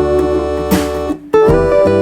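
Music: a strummed acoustic guitar playing chords, with a new chord struck about every half second to second.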